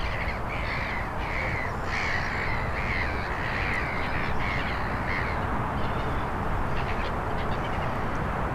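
A crow cawing in a run of about ten calls, about two a second, that stops roughly two-thirds of the way through.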